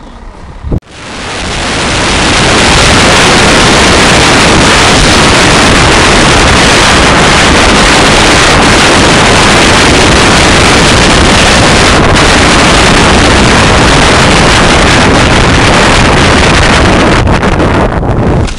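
Wind rushing over a helmet-camera microphone as the bike speeds down a snow slope. It builds over about two seconds into a very loud, steady, overloaded rush, then becomes gusty and uneven near the end.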